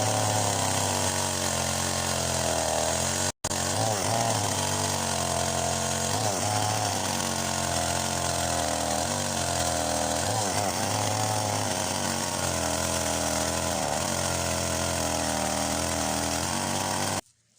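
Husqvarna two-stroke chainsaw running at high revs while cutting branches, its engine pitch dipping and recovering again and again as the chain bites into the wood. The sound drops out for an instant about three seconds in and cuts off abruptly near the end.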